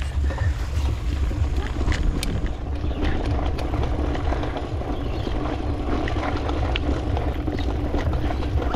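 Wind rumbling on the microphone of a handlebar-mounted camera as a mountain bike rolls over a herringbone brick path, with scattered clicks and rattles from the bike. A faint steady hum joins about three seconds in.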